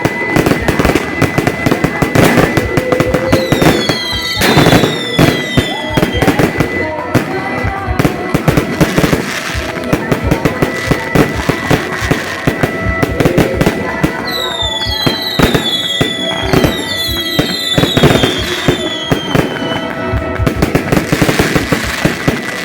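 Fireworks display: dense crackling bangs and pops throughout, with clusters of short whistles falling in pitch about four seconds in and again from about fourteen to nineteen seconds in.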